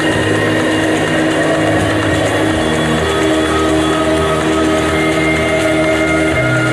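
Droning performance score: layered held tones over a dense noisy hum, the chord of tones shifting about three seconds in and again near the end.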